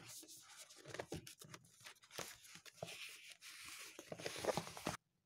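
Paper pages of a printed book being handled and turned by hand: a string of soft rustles and taps. The sound cuts off suddenly near the end.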